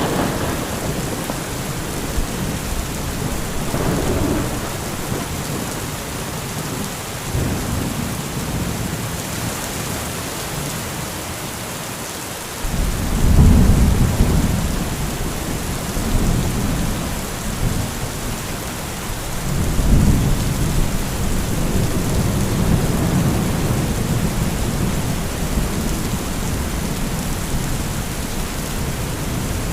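Heavy rain falling steadily with rolling thunder. A loud low rumble breaks in suddenly about halfway through and another swells up a few seconds later.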